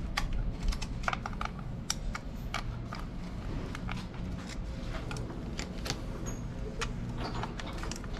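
Irregular light metallic clicking as the worm-drive screw of a hose-clamp style piston ring compressor is tightened around a piston with a small nut driver, over a low steady hum.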